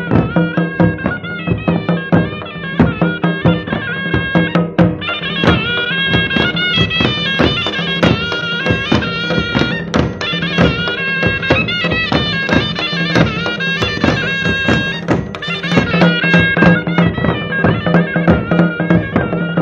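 Pahari folk music for a nati dance: a reedy wind instrument plays a stepping melody over a steady drone, with drums beating a steady rhythm.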